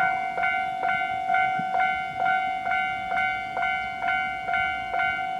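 Japanese railway level crossing's electronic warning bell ringing steadily at about two strokes a second, the alarm that a train is approaching.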